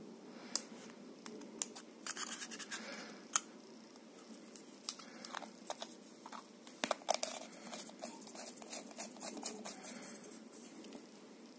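Handling noise of a small red aluminium power bank case being put together: scratchy scraping and scattered sharp clicks as the plastic battery holder is pushed into the metal tube. The clicks and scraping come in clusters, about two seconds in and again about seven seconds in.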